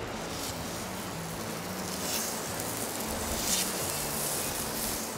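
Raw tuna steaks searing on a hot griddle pan: a steady sizzle that grows stronger about two seconds in.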